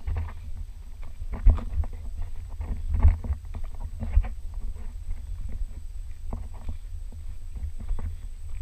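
Footsteps crunching on a gravel and dirt trail at an irregular walking pace, over a continuous low rumble.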